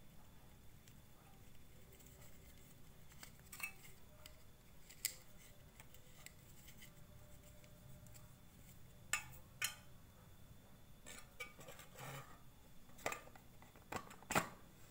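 Scattered clicks and knocks of hard plastic parts being handled: a small motor in a grey PVC pipe cap. The loudest knocks come near the end, as the cap is pushed onto a white PVC pipe.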